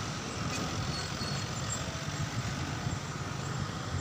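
Road traffic: a line of box trucks and cars driving past, a steady rumble of engines and tyres.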